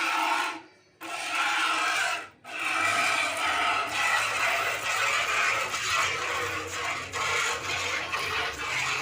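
Milk squirting from a cow's teats into a bucket during hand milking: a continuous hiss of jets that breaks off briefly twice in the first few seconds.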